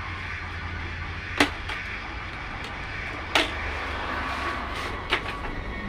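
Steady low hum with three sharp clicks or knocks, about two seconds apart.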